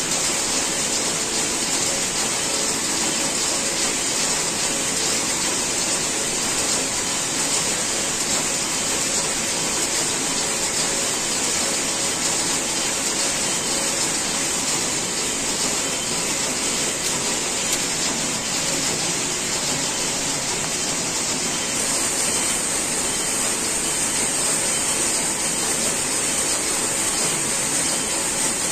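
Steady, even machinery noise of a knitting factory: a constant hiss-like whir with a faint hum and no breaks or single events.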